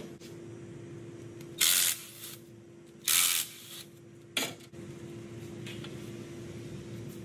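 Two short, noisy bursts from a hand tool working fasteners on top of a car engine, each about half a second long and a second and a half apart, followed by a single sharp click. A steady hum runs underneath.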